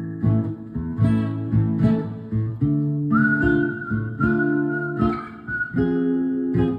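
Acoustic guitar strummed in a steady rhythm under a whistled melody. The whistling drops out just after the start and comes back about three seconds in, holding long high notes.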